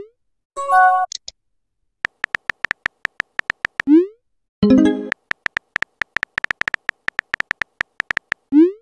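Phone texting-app sound effects: runs of rapid keyboard tap clicks, a short rising swoosh each time a message is sent (three times), and a brief chime-like tone when a reply arrives (twice).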